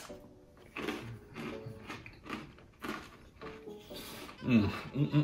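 Crunching as a crisp toasted cracker topped with roasted garlic is chewed, about two crunches a second, then a hummed 'mmm' near the end.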